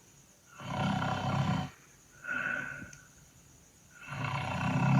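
Cartoon snore sound effect for a Numberblocks character: a long, low snore on the breath in, then a shorter whistle on the breath out. A second snore starts about four seconds in.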